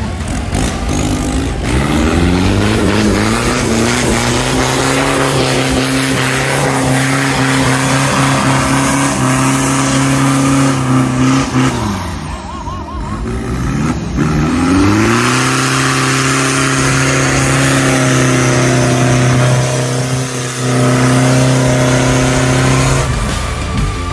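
Off-road 4x4's engine revved hard and held at high revs as it pushes through a muddy water pit; the revs fall away briefly about halfway, then climb again and hold until just before the end.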